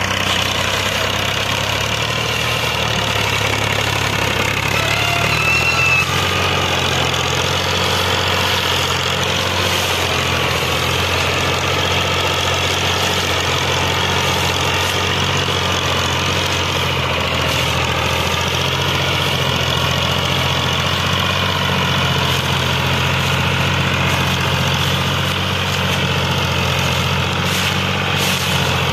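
Farm tractor's diesel engine running steadily under load as it slowly pulls a heavily loaded sugarcane trolley.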